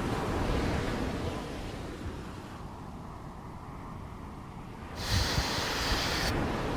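Wind buffeting the microphone over the wash of surf on the beach. About five seconds in, a brighter hiss starts abruptly and cuts off just as abruptly a little over a second later.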